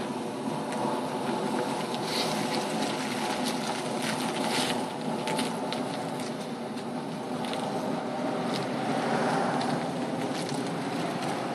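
A 2006 Lexus GS430's 4.3-litre V8 running at low speed as the car pulls away slowly, a steady engine note with a few faint clicks over it.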